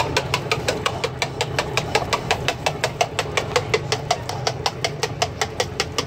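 A whisk beating a thick yellow sauce in a steel can, clicking rapidly and evenly against the metal sides, about six or seven strokes a second, over a steady low hum.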